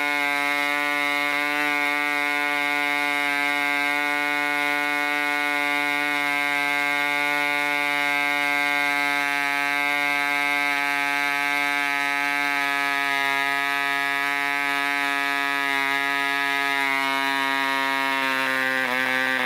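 1965 Mikro Std 3.5cc two-stroke model diesel engine running flat out with a steady high buzz, turning a 10x6 propeller at about 8,800 rpm. Near the end the pitch dips briefly as the compression screw is turned and the revs fall.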